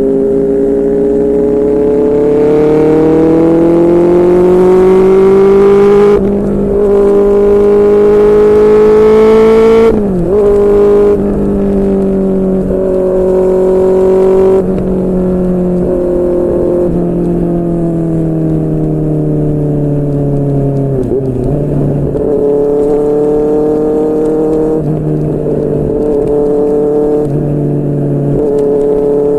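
QJMotor SRK600's inline-four engine through a Yoshimura R11 exhaust, on the move: it pulls up through the revs for about six seconds, dips briefly, and climbs again. About ten seconds in the revs drop sharply, then the engine runs fairly steadily at part throttle with small rises and falls.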